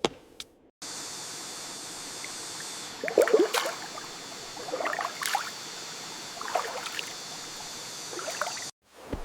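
Footsteps on mechanical keyboards: four steps, each a crackly cluster of key switches clacking under foot, the first the loudest, over a steady hiss that starts and cuts off abruptly.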